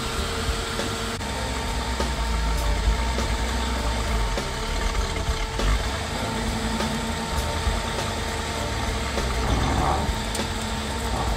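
Toyota Land Cruiser's V8 engine idling steadily.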